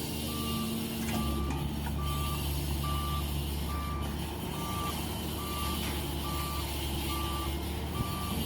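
Reversing alarm on heavy earthmoving equipment beeping steadily, about one beep a second, over the machine's diesel engine running at a steady pitch.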